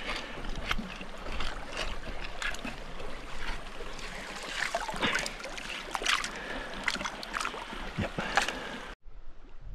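A small hand tool scraping and digging gravel under shallow creek water, with repeated splashes and stones clicking as wet gravel is scooped out. The sound cuts off suddenly near the end.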